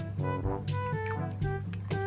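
Background music with a steady beat: an upbeat instrumental track with a regular drum pulse and a bass line.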